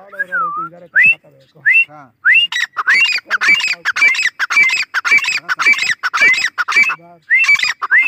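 Grey francolin calling: a few separate rising notes, then a loud, rapid run of repeated shrill notes lasting about four seconds, with a couple more rising notes near the end.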